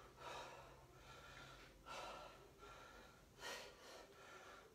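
A man's faint, sharp exhalations, three of them about a second and a half apart, breathing hard with the effort of single-arm kettlebell rows.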